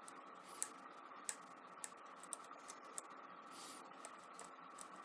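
Faint, irregular small metal clicks and a brief scrape of a lock pick working the pin stack of an ABUS 83/45 padlock under tension.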